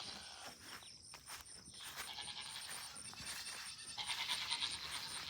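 Faint farmyard background of goats bleating at a distance, with a thin, high, evenly repeating chirping throughout.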